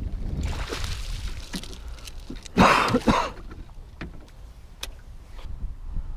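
A pike being netted and lifted aboard a boat. Water rushes and splashes off the landing net, with the loudest splashing and thrashing in a short double burst about two and a half seconds in. Light knocks follow over a low rumble.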